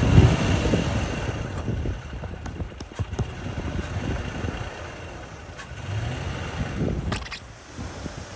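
Jeep engine running and revving, loudest at the start, easing off, then building again near the end, with a few sharp knocks.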